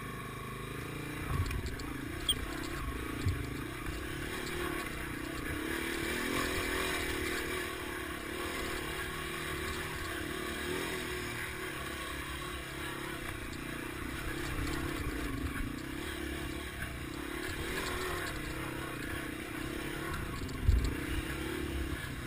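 Yamaha TW200's single-cylinder four-stroke engine running at low speed, its pitch wavering up and down with the throttle, with a few knocks as the bike bounces over rock ledges.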